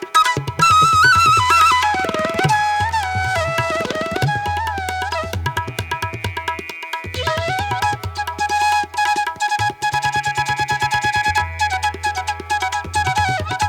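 Background instrumental music in an Indian classical style: a gliding melodic line over a steady drone, with tabla-like drumming.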